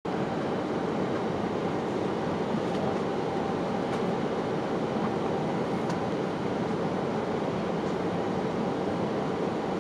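Steady cabin noise inside a Boeing airliner descending on approach: an even rush of air and engine noise through the fuselage, with a faint steady hum under it.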